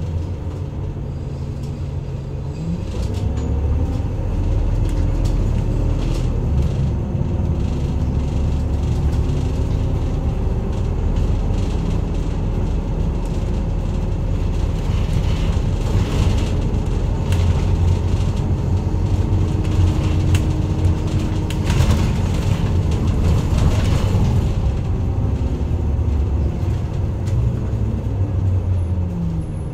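Isuzu Erga Mio city bus's diesel engine and road noise, heard from inside the bus: the engine note rises as it pulls away about three seconds in, runs steadily at road speed, then eases off near the end as the bus slows.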